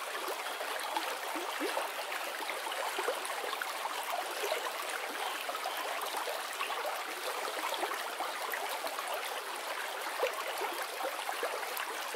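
Small rocky stream trickling and splashing over stones in a little cascade, a steady, even water sound.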